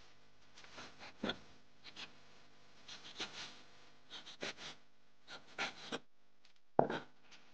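Kitchen knife chopping raw horse mackerel on a wooden cutting board: a dozen or so soft, irregular knocks of the blade through the fish onto the board, with one louder knock near the end.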